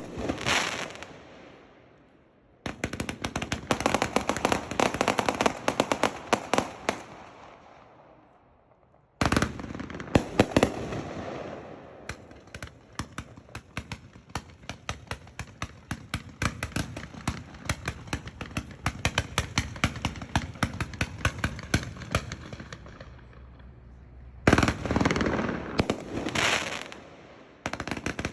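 Tako Meteor Strike 168-shot firework cake firing: long volleys of rapid sharp reports with crackle, broken by short lulls about two, eight and twenty-four seconds in.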